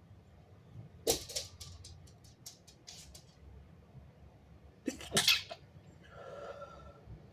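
Two wet sneezes from a person, one about a second in and one about five seconds in. The first trails into a string of short wet sounds lasting about two seconds, and a faint short sound follows the second.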